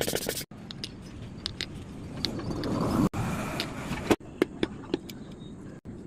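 Handling noise from working on an air impact wrench: scattered light clicks and scraping of metal parts, with a swelling rush of noise that stops abruptly about three seconds in.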